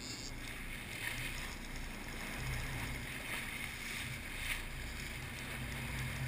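57-foot Bertram sportfishing boat running, its engines a steady low hum under water rushing and splashing along the hull.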